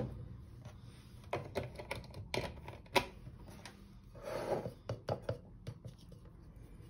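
Scattered sharp clicks and light knocks of kitchen utensils on a hard counter and a ceramic bowl as a metal wire whisk is picked up and starts beating an egg with cornflour.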